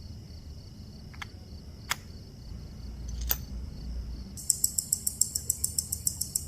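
Three separate sharp clicks, then from about four and a half seconds in the steady, loud ticking of a Rolex GMT-Master 16700's restored automatic movement, about eight ticks a second. That is the 28,800 beats-per-hour rate of its calibre 3175 running again after service.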